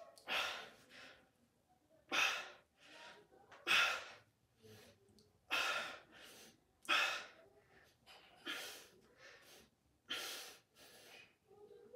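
A man breathing hard as he lifts dumbbells through a set of lateral raises. A sharp exhale comes about every second and a half, seven in all, with quieter breaths in between.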